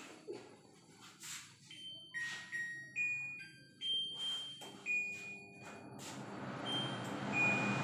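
A kitchen chimney range hood's touch control panel beeping as buttons are pressed: a string of short electronic tones at several different pitches, with light taps in between. About halfway through, the hood's extractor fan starts up and its rushing noise grows steadily louder.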